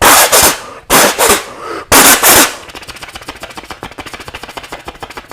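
Vocal mimicry of gunfire: three loud shots about a second apart, then a fast, quieter machine-gun rattle that runs on to the end.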